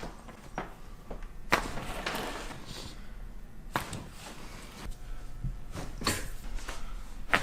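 A few sharp cracks and knocks during a chiropractic adjustment, the loudest about one and a half seconds in, others near the middle and end.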